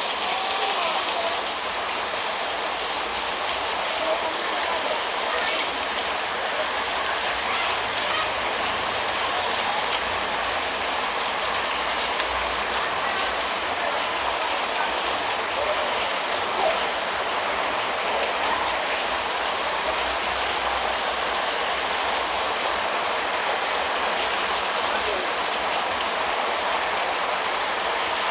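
Heavy rain falling steadily: a dense, even hiss of downpour with scattered drop ticks.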